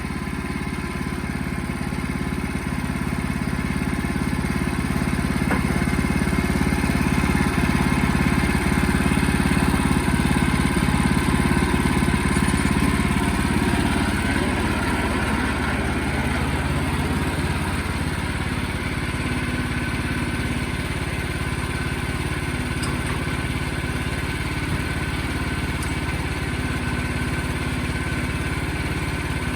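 Sawmill engine running steadily; the sound swells over the first several seconds, is loudest and roughest around the middle, then eases back a little.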